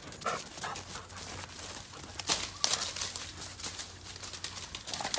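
A dog dashing about through dry leaves and grass: irregular rustling and crunching with quick short patters, and a couple of brief faint blips near the start.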